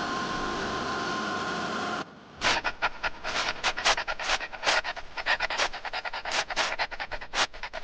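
A dog panting hard and fast, quick breaths at about two to three a second, starting about two seconds in. Before it a steady mechanical hum runs and cuts off.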